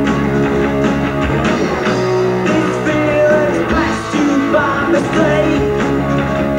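Rock band playing live, with electric guitar, bass and drums.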